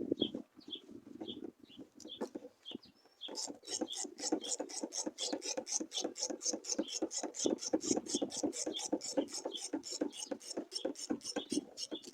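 Ratchet wrench clicking fast and evenly, about five clicks a second, starting about three seconds in, as a fuel-pump mounting bolt is backed out. A bird chirps repeatedly in the background before the ratcheting starts.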